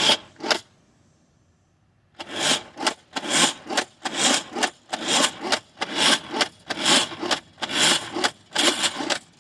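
Adventure Force Spinshot pump-action disc blaster being pumped rapidly to fire its spinning plastic discs. There are about eight rasping plastic pump strokes, each a back-and-forth pair a little under a second apart, after a few short handling clicks at the start.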